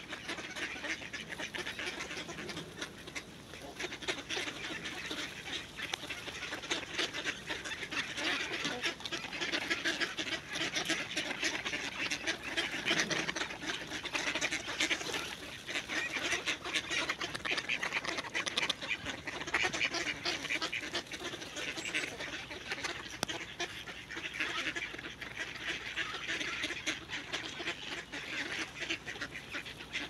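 A large flock of mallards quacking and chattering, many short calls overlapping without a break.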